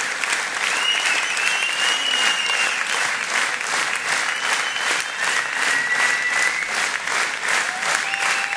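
A large audience applauding with dense, steady clapping, and several long, even-pitched whistles over it.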